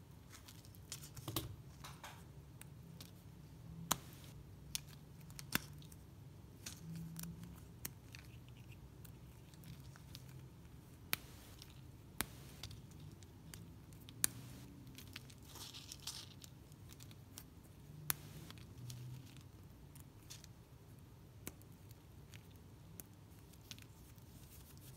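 Thin shards of dry soap snapping and crunching between fingers, with soft rustling of loose shavings and scattered sharp cracks.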